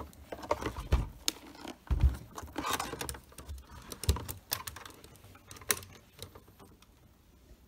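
Hands handling a wooden-cased radio alarm clock: a string of sharp clicks and taps with a few dull knocks as the case and its parts are moved, dying away over the last couple of seconds.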